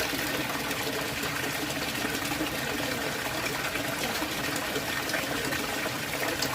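Water running and splashing steadily in a fish pond, a continuous even rush with no breaks.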